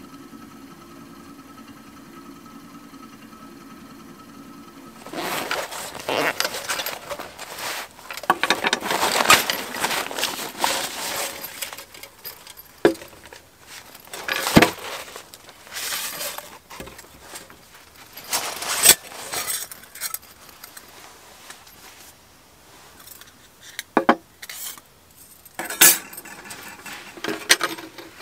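Metal clinks, rattles and sharp clicks of a folding titanium wood stove's panels being handled and fitted together. They follow a steady low hum that stops about five seconds in.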